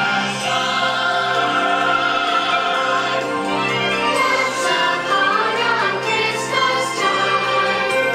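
Music with a choir singing long, held chords.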